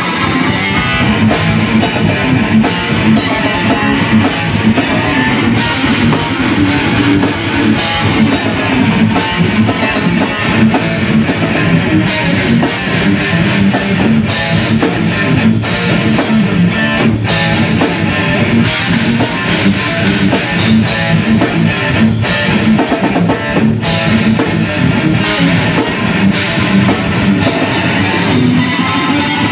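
Live technical death metal: a distorted electric guitar riffing fast over a pounding drum kit, in continuous full-band playing. The kick drum sounds thin and the same on every hit, from poor miking.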